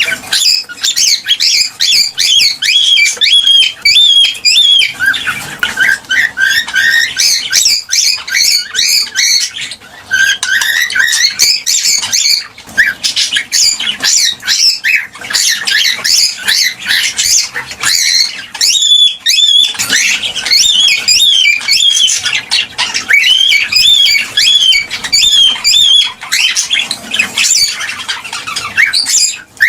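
Cockatiels chirping and calling in a dense, continuous stream of short, high whistled chirps, with a brief lull about two-thirds of the way through.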